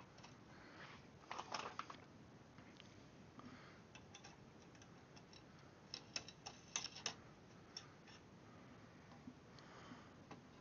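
Faint clicks and light taps of hands handling the Ender 3 printer bed and its leveling-wheel hardware, in a short cluster about a second and a half in and another around six to seven seconds in, with a few single ticks between; otherwise near silence.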